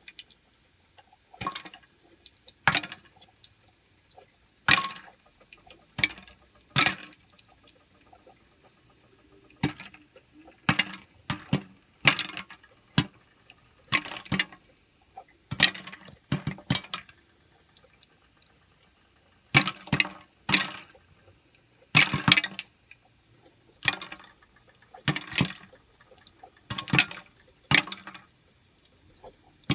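Popcorn kernels popping: single sharp pops at irregular intervals, roughly one a second, sometimes two close together, with a short lull about two thirds of the way through.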